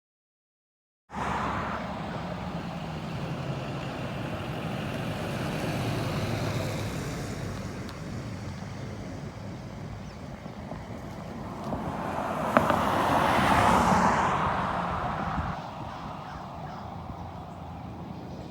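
Outdoor background of wind on the microphone and road traffic, cutting in about a second in. One vehicle swells past about two-thirds of the way through, with a single sharp click at its loudest point. No siren tone is heard.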